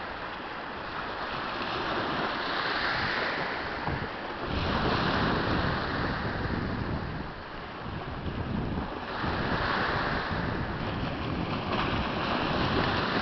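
Surf breaking and washing up a pebbly shore, swelling and fading in repeated surges. Wind rumbles on the microphone through much of it.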